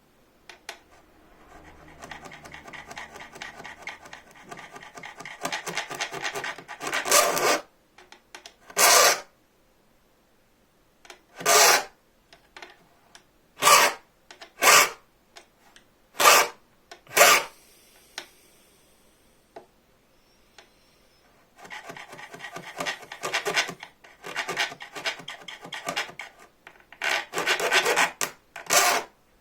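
Hand file cutting teeth into a bow-saw blade with rasping strokes. A run of quick short strokes is followed by single strokes about a second apart, then another run of quick strokes near the end. This is the first pass, setting out the teeth to about half their depth.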